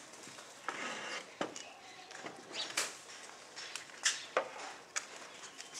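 A brief scrape and a scatter of sharp knocks and clinks as a plastic chair is pulled into place and a teacup is handled and set down.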